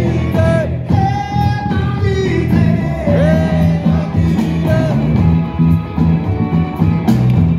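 Live rock and roll band playing: electric guitar, bass guitar and drums, with sliding pitched notes over a steady low rhythm.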